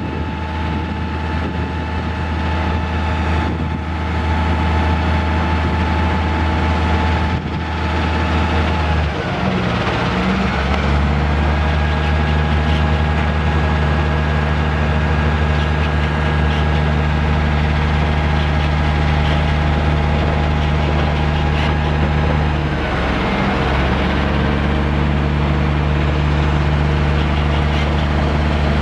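Cummins ISM 10.8-litre inline-six turbo diesel running steadily to drive the Terex crane's hydraulics through the PTO, with a steady higher whine over it. The engine note shifts about ten seconds in and again about twenty-three seconds in as the boom is raised and extended.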